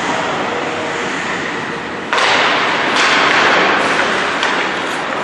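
Ice hockey rink game sounds around a faceoff: a steady noisy hiss of skates on ice that turns suddenly louder about two seconds in, with a few sharp knocks of sticks and puck, echoing in the hall.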